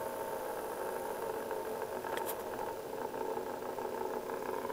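Small brushed DC hobby motor running under pulse-width-modulated drive, a steady mechanical hum, as its speed is turned down with a potentiometer.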